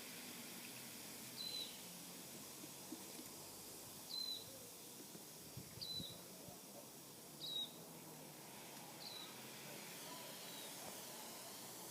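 A bird calling over and over, a short high chirp about every second and a half, over a faint steady hiss.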